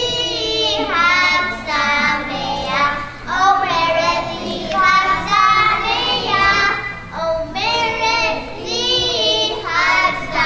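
Children singing a song, in sung phrases with short breaks between them.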